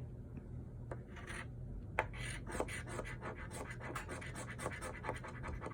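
Scratch-off lottery ticket having its coating scratched away in quick, short strokes, with a sharp click about two seconds in.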